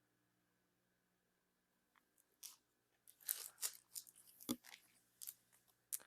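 Trading card packaging and cards being handled. After a few quiet seconds comes a quick run of crisp crinkles and clicks, with one sharper knock about halfway through.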